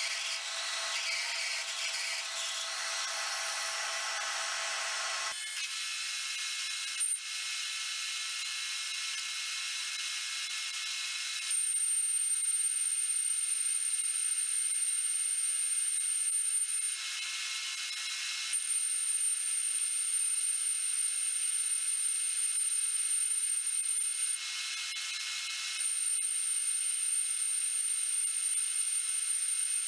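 Metal lathe running, turning a small steel part, with steady mechanical noise that thins abruptly about five seconds in. In the second half a steady high-pitched whine comes and goes three times, each lasting about five seconds.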